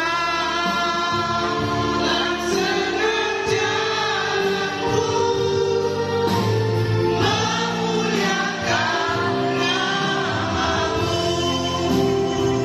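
Christian worship song: voices singing a melody over sustained instrumental chords.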